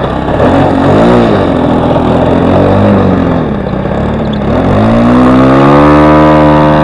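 Four-stroke glow engine of a radio-controlled model plane, its pitch swinging up and down with the throttle, then rising about five seconds in and holding steady at full power, as for a takeoff run.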